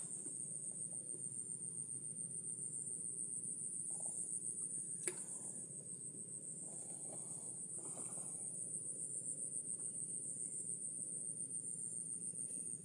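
Insects trilling in a continuous high-pitched, finely pulsed chorus over a low steady background noise, with a single sharp click about five seconds in.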